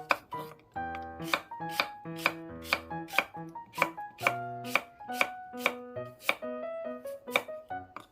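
Kitchen knife chopping through vegetables on a cutting board in a steady rhythm of about two cuts a second, with background music playing.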